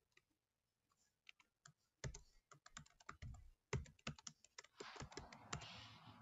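Typing on a computer keyboard: a few light keystrokes, then a fast run of clicks from about two seconds in as a password is entered, with a soft hiss under the last keystrokes.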